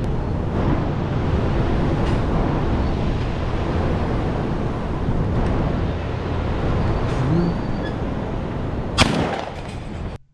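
A single shotgun blast about nine seconds in, over a steady low rumbling noise that cuts off suddenly just after.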